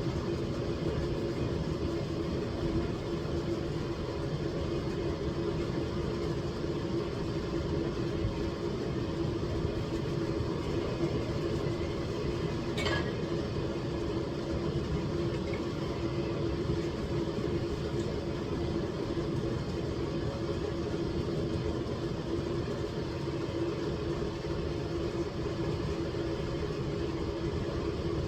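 Steady low mechanical hum with a constant tone, like a motor or engine running without change, with one faint click about halfway through.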